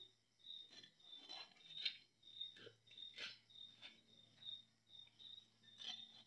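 Faint wet handling of raw fish pieces in a steel bowl: a few short squelches and clicks, the loudest about two and three seconds in. Behind them is a high chirp repeating about twice a second.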